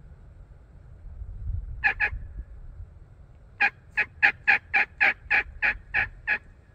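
Turkey yelping, loud and close: two quick notes about two seconds in, then a run of ten evenly spaced yelps at about four a second. A low rumble comes just before the first notes.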